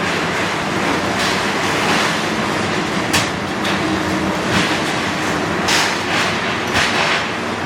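Heavy demolition machinery with its diesel engine running steadily, broken by a series of sharp crunching and clanking impacts of breaking debris.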